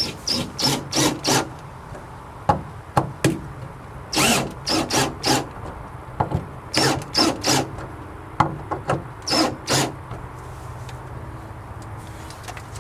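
A hand tool rasping against wood in quick back-and-forth strokes, in runs of three to five strokes with short pauses between.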